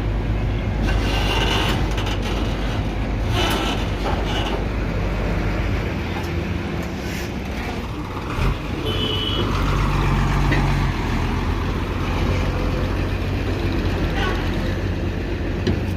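Hino truck's diesel engine running steadily at low speed, with a few short clicks or knocks in the first few seconds.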